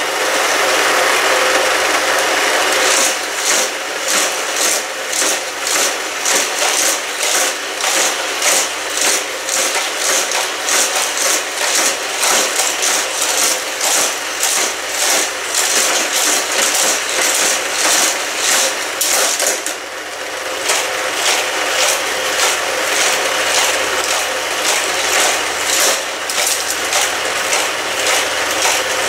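Two motorized Hot Wheels Criss Cross Crash track sets running at once: the battery boosters' spinning power wheels whir steadily as die-cast cars rattle around the plastic loops. A fast, repeating high clatter joins about three seconds in, and the din dips briefly about twenty seconds in before picking up again.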